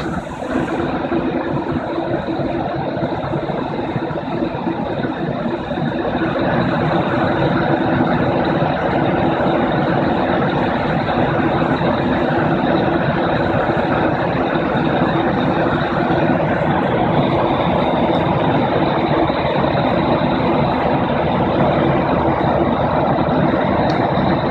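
Steady drone of an aeroplane cabin in flight: engine noise and rushing air, with a steady low hum and a faint high whine. It grows a little louder about six seconds in.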